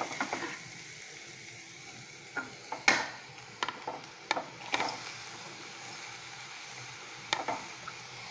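Onions, green chilli and ginger sizzling in hot oil in a pan while being stirred, with a steady frying hiss and a spatula knocking against the pan about six times in the second half.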